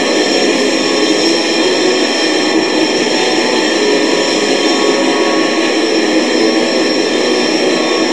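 Raw, demo-quality black metal: a dense, unbroken wall of distorted guitar.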